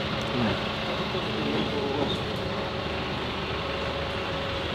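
Street traffic noise dominated by a double-decker bus running close by: a steady engine hum over the road noise.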